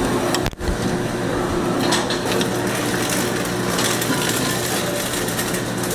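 Electric meat slicer's motor running with a steady hum, its rows of circular blades turning as meat is fed through. The sound drops out for an instant about half a second in.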